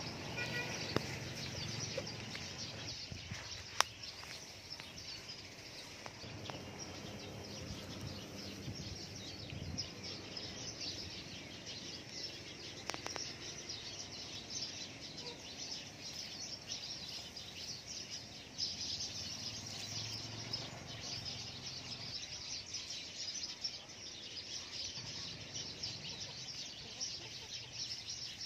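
Outdoor ambience of many birds chirping continually, with chickens clucking now and then. Two sharp clicks sound in the first few seconds.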